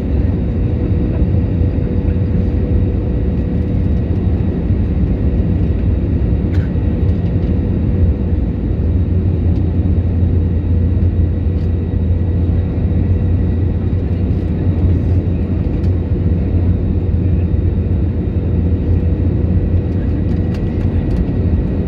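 Jet airliner cabin noise heard from a window seat beside the engine on approach: a steady low roar of engine and airflow, with a thin steady tone running through it.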